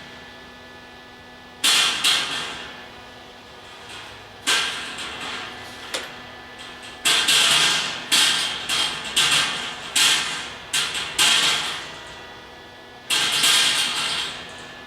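Electric arc welder laying short tack welds on steel, crackling in a run of about a dozen bursts of under a second each, several in quick succession in the middle.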